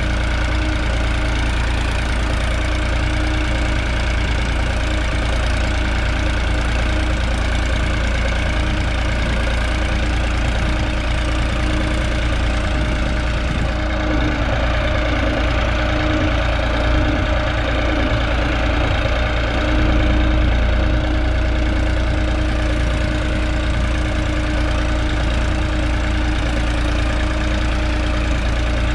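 New Holland 3630 tractor's three-cylinder diesel engine running steadily under load while pulling a disc harrow through the soil.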